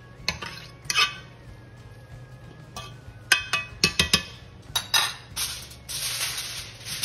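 A metal fork clinks and scrapes against an aluminium pot while stirring cooked rice and beans, with several sharp clinks, a cluster of them around three to four seconds in. From about five and a half seconds a steady crinkling rustle follows, aluminium foil being handled to cover the pot.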